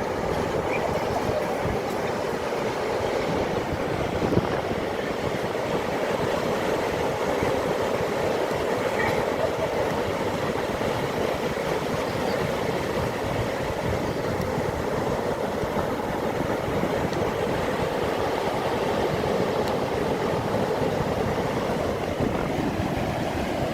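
Steady, even rushing of sea waves.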